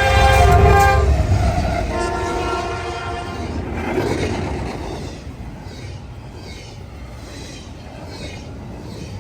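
Diesel locomotive's multi-chime air horn sounding two blasts, the first ending about a second in and the second ending about three and a half seconds in, over the low rumble of the locomotive. After that the horn stops and a quieter rumble and rattle of the train rolling past continues.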